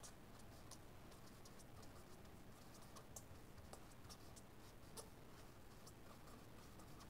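Faint strokes of a marker pen on paper: scattered short scratches and light taps, several a second, over quiet room tone.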